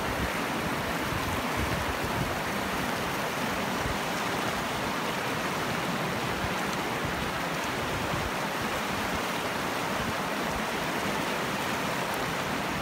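A fast, shallow mountain river flowing over stones: a steady, even rush of water.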